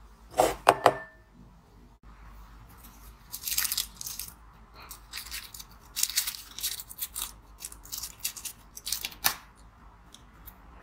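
Paper cocktail umbrella crinkling and rustling in spells as it is unfolded by hand. Near the start, a few sharp clinks with a short ring are the loudest sound.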